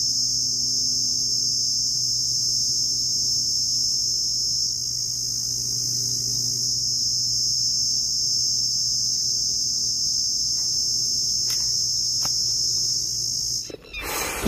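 Steady, high-pitched chorus of insects, continuous and unvarying, with a faint low hum beneath it; it cuts off abruptly near the end.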